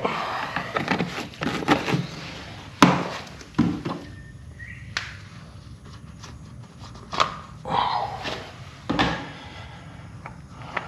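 Irregular knocks, clunks and light clatter of objects being handled and set down, with a few louder knocks about 3, 7 and 9 seconds in.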